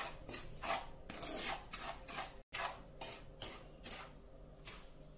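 Flat spatula scraping and stirring semolina roasting in ghee in a nonstick pan, repeated scraping strokes about three a second. The strokes break off briefly about halfway, then carry on a little softer.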